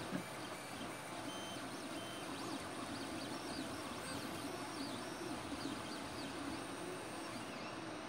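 Ender 3 Pro 3D printer running a print: its stepper motors whine in short rising and falling tones over a steady whirr.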